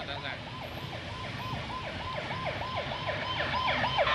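A siren sounding a fast repeating downward sweep, about four a second, growing louder, over the low rumble of street traffic.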